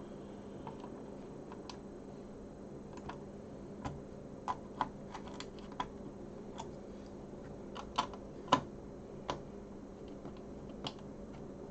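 Irregular light clicks and taps of small hard plastic and metal parts being handled while a Sinclair QL case is screwed back together, over a steady low hum.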